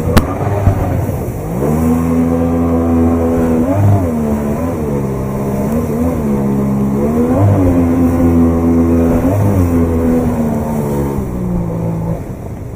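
Outboard motor on an inflatable boat, revved up and down several times as it drives the boat up through a river rapid, with rushing water under it. There is a sharp knock just after the start, and the engine note drops away near the end.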